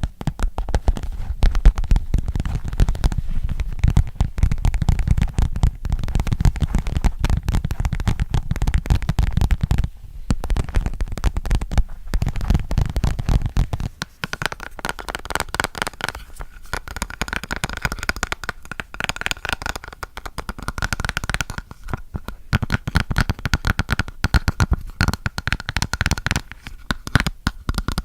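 Fast fingernail and fingertip tapping on objects right at the microphone, a dense run of quick taps. About halfway through, the low thudding gives way to crisper taps with a faint ringing tone.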